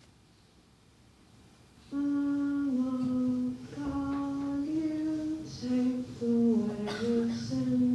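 A woman's voice singing a slow melody in long held notes, starting about two seconds in, from a film soundtrack played through a hall's speakers.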